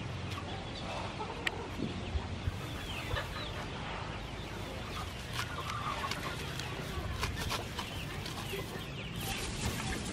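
Chickens clucking, with lemongrass leaves rustling and stalks cracking as hands pull at the base of the clump.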